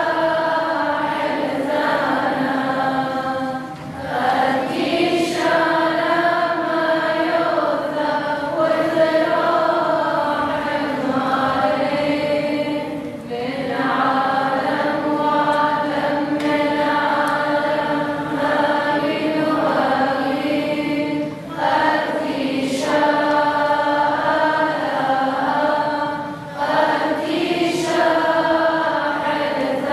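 A choir singing slowly in long, held phrases, with short pauses between the phrases.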